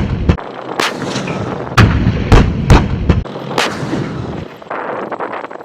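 Weapons fire: a string of sharp, loud shots at uneven intervals, about six in the first three and a half seconds, then fainter crackling shots near the end.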